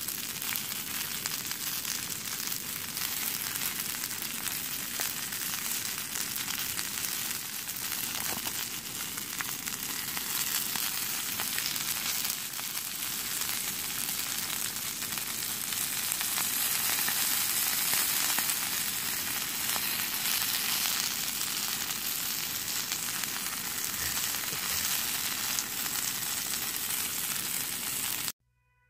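Shrimp sizzling steadily in a hot black iron frying pan over a portable gas stove. The sizzle cuts off abruptly just before the end.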